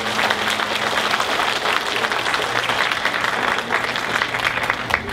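Audience applauding: dense, steady hand clapping from a large crowd, thinning near the end.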